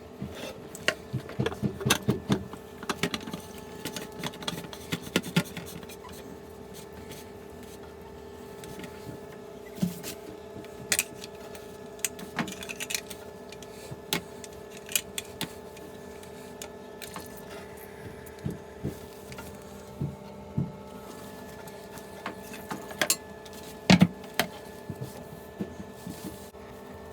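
Irregular clicks and knocks of things being handled, thickest in the first few seconds and again near the end, over a steady hum.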